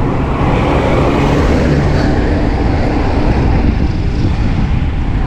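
Steady rush of wind over the microphone while riding a bicycle, mixed with road traffic noise.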